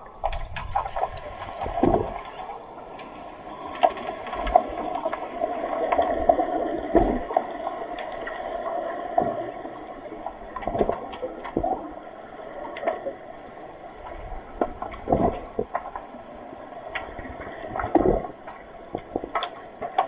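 Underwater pool noise picked up by a submerged camera: a steady muffled rush of water with many sharp clicks and knocks scattered through it, likely sticks and the puck striking the pool floor during play.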